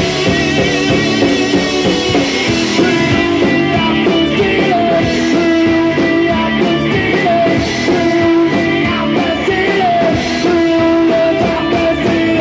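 Rock band playing live: electric guitars holding long notes over bass and a drum kit.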